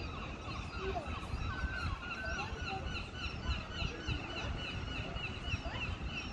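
Many birds calling and chirping at once, a dense chatter of short rising and falling notes, over a low rumble of wind on the microphone.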